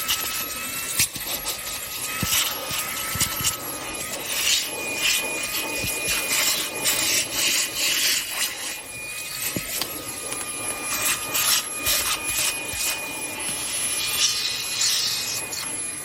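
Fanttik Slim V8 Apex handheld vacuum running with a steady high motor whine, its nozzle scraping and rubbing over a surface with many small clicks and knocks.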